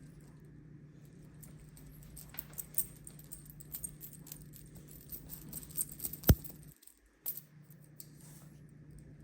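Embark dog DNA swab tube being shaken to mix the cheek-swab sample, the plastic tube and swab rattling in a run of light, irregular clicks, with one sharper click a little past the middle.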